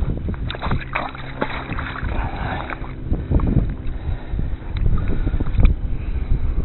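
Hands working a wet fabric keeper bag against the side of a kayak: irregular rubbing and knocks with water slopping. The heaviest thumps come about three and a half and five and a half seconds in.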